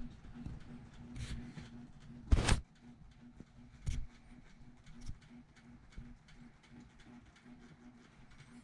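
Ragdoll cat sneezing: one sharp sneeze about two and a half seconds in, with a few fainter short noises before and after it.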